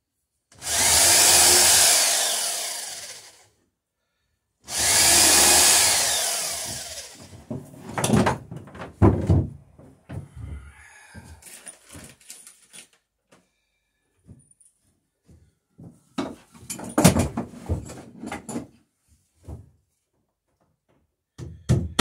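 Electric drill boring two holes into the dory's wooden rail, each run lasting about three seconds and winding down at the end; these are pilot holes for the nails that fasten the rail. After them come scattered knocks and clatter of handling.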